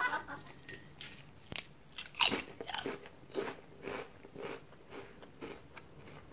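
A person biting into and chewing a single potato crisp: a run of sharp, irregular crunches, the loudest about two seconds in, tapering off toward the end.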